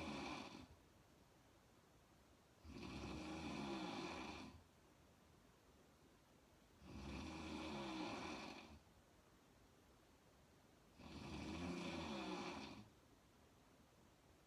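A woman snoring with her mouth open while lying on her back. There are long snores about every four seconds, each lasting about two seconds with quiet breaths between. One snore is ending as the clip starts, and three more follow, about three, seven and eleven seconds in.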